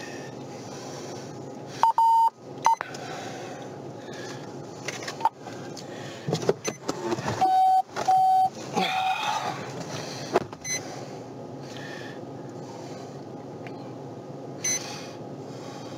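Electronic beeps: two short higher beeps about two seconds in, then two or three slightly lower beeps around eight seconds, over a steady background hum.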